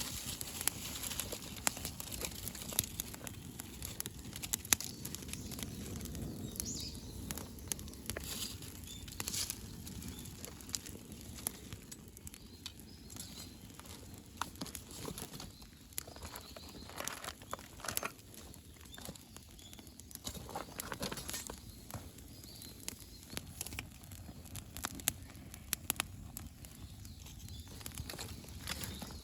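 Wood campfire crackling, with many irregular snaps and pops over a steady hiss.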